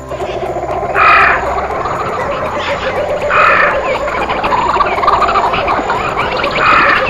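Dense chorus of frogs calling, with louder bursts of croaking about a second in, about halfway through and near the end.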